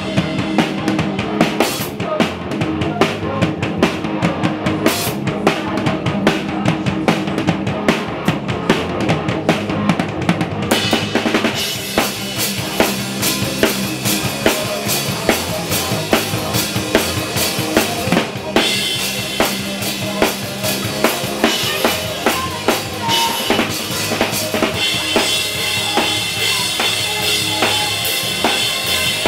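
A drum kit played live and heard up close within a full band, with steady pitched instruments underneath. The kick drum and snare hit in a fast, driving rhythm. About 11 seconds in, cymbals start washing over the beat and keep going.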